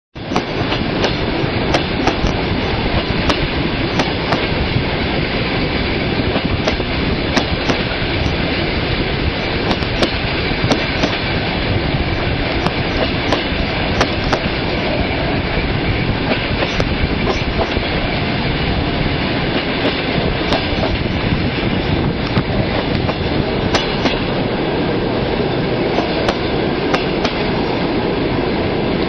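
Railway wagon wheels clattering over rail joints as a train rolls along: a steady rumble with sharp knocks scattered through it.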